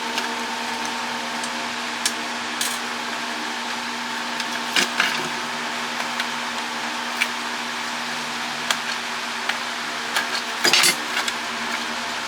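Scattered clicks and clinks of small metal and plastic parts and tools handled while a WiFi router is taken apart, with a brief clatter about ten and a half seconds in, over a steady background hum.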